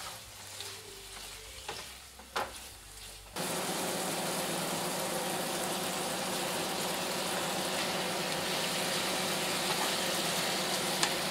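Chicken strips, then peppers and onions, frying in a skillet. At first there is a soft sizzle with a few clicks and a knock of the utensil in the pan. About three seconds in, a much louder steady sizzle starts suddenly, with a low hum under it.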